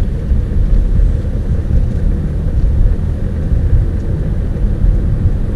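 Steady low rumble of a car driving at highway speed, heard from inside the cabin: road and engine noise with no distinct events.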